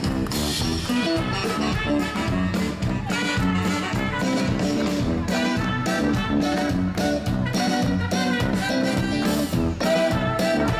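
A live band plays dance music through stage speakers: saxophones, trumpet, electric guitar and drums, in a continuous rhythmic number.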